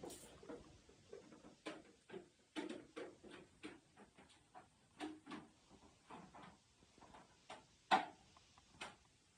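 Irregular light clicks and knocks of objects being handled, with one sharper knock near the end.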